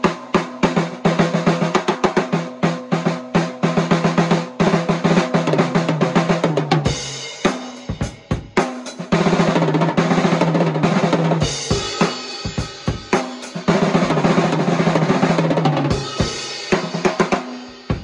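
A custom 14x6 mahogany snare drum played with sticks: rapid strokes and accents at first, then long rolls broken by single hits from about seven seconds on, ending on one last stroke. The drum's ringing tone carries under the strokes.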